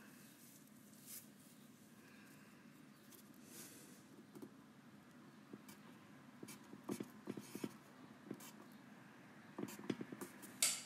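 Faint writing sounds: light scratching, then a run of small taps and clicks in the second half and a sharper click near the end.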